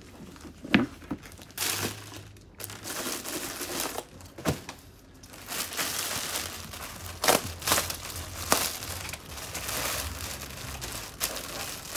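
Clear plastic garment packaging crinkling and rustling as it is handled, broken by several sharp knocks.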